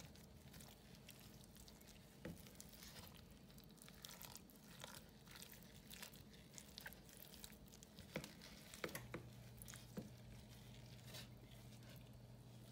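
Faint squishing and scraping of a spatula stirring thick, creamy turkey pot pie filling in a stainless steel saucepan, with scattered light ticks.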